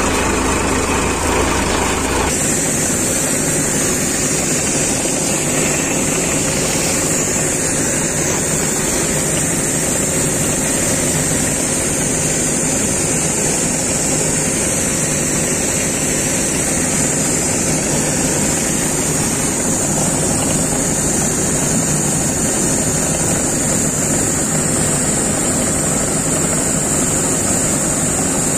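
Combine harvester running steadily, its unloading auger pouring threshed wheat grain into a tractor trolley: a loud machine drone with a constant high hiss. About two seconds in the sound shifts, from driving behind the harvester in the field to the unloading.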